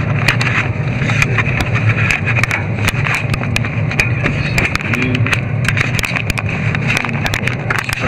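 Plastic bag wrapped around the camera rustling and crinkling against the microphone as it is handled, with many sharp irregular crackles over a steady low hum.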